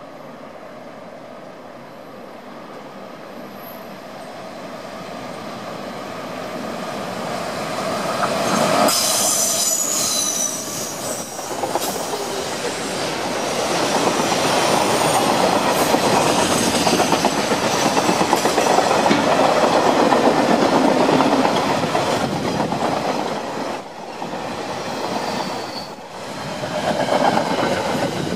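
Freight train hauled by a GE-built DXR-class diesel-electric locomotive approaching and passing at speed. The sound grows steadily louder for about eight seconds, then rises suddenly as the locomotive goes by with a high squeal. A long train of container wagons follows, its wheels rumbling loudly on the rails, with brief dips near the end.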